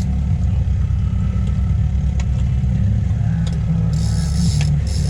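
Fishing boat's engine running steadily, a low pulsing rumble, with a few faint clicks over it.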